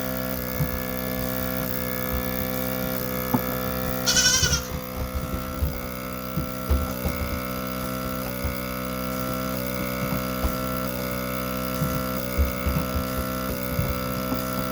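Automatic goat-milking machine running steadily with a regular pulse, and a goat bleating once about four seconds in.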